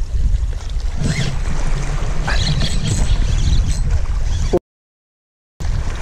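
Waves washing against the rocks of a jetty, heard as a loud, steady low rumble along with wind on the microphone. The sound cuts out completely for about a second near the end, then returns.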